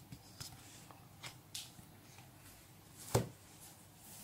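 Paper Panini stickers being handled and shuffled by hand: a few faint rustles and light clicks, then one louder knock a little after three seconds.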